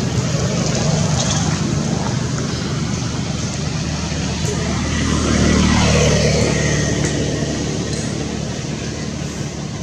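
Steady low engine hum, swelling a little about five to six seconds in.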